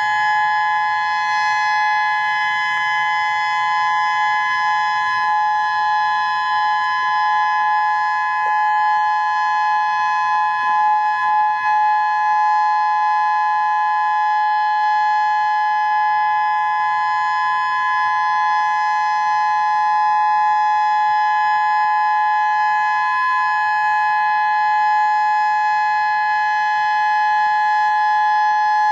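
Whelen 2016 electronic warning siren sounding a steady alert tone for its monthly test. It holds a constant chord of two close pitches that neither rises nor falls.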